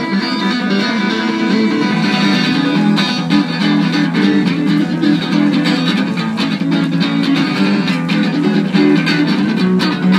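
Guitar music: a steady instrumental passage of plucked and strummed guitar, without singing.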